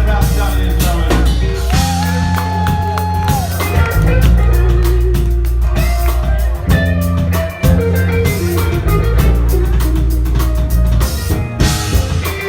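Live rock band playing: drum kit, bass and electric guitar together, with a held lead note that bends in pitch about two seconds in.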